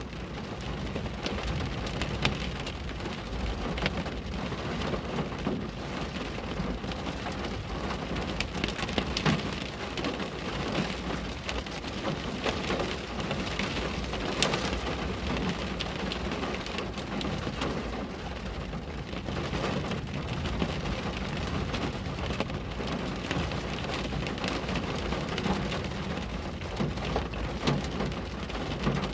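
Steady rain falling on a window pane, with many individual drops ticking against the glass over a low, even rumble.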